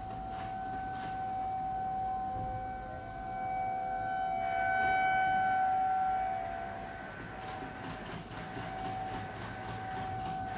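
Federal Signal outdoor warning siren sounding a steady tone for its monthly test. The tone holds one pitch, swelling louder around the middle and easing off again.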